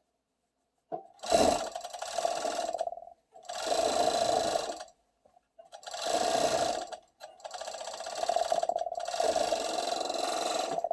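Serger (overlock machine) stitching a seam in four runs, stopping briefly between them.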